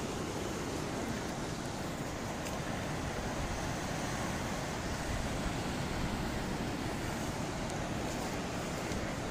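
Sea surf breaking and rushing through a rocky inlet, a steady rushing noise, with wind on the microphone.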